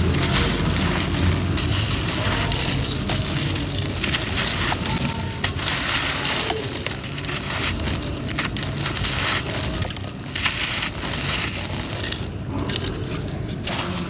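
Homemade cement being crushed and crumbled: a continuous gritty crunching made up of many small cracks that overlap without pause.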